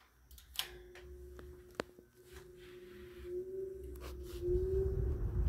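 1960s Emerson Electric 20-inch reversible box fan switched on with a click about half a second in. Its motor then hums with a steady, slightly wavering tone as the blade spins up, and a rush of moving air grows louder over the last second.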